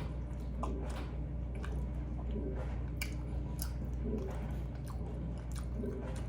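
Close-up mouth sounds of chewing a fried egg roll: irregular wet crackles and crunchy clicks over a steady low hum.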